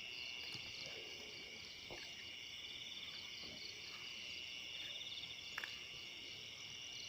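Night chorus of crickets trilling steadily, with a few faint ticks, one a little sharper a bit over five seconds in.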